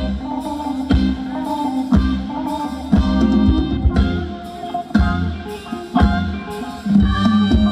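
Live band playing Thai ramwong dance music over a steady drum beat, about one strong beat a second.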